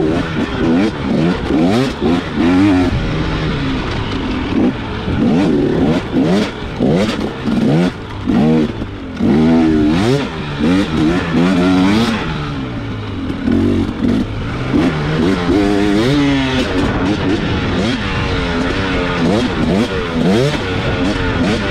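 Enduro dirt bike engine revving up and falling back again and again as the throttle is worked, with scattered knocks and rattles from riding rough terrain.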